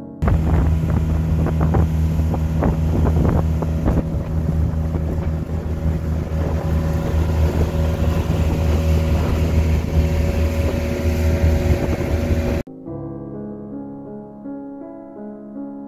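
Engine of a motorized outrigger boat running steadily under way, with wind and water noise and a few sharp knocks in the first few seconds. Near the end it cuts off abruptly to piano music.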